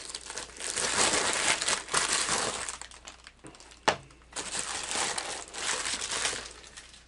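Amazon padded plastic mailer crinkling and rustling as it is handled and its contents taken out. About four seconds in comes a single sharp knock, a small cardboard lure box set down on the counter.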